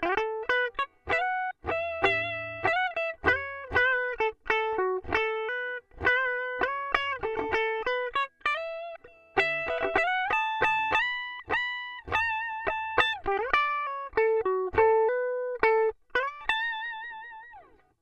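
Swing C1 Plus Les Paul-style electric guitar played clean on its bridge humbucker: single-note lead phrases with string bends and vibrato. Near the end a last note rings with vibrato, slides down and fades out.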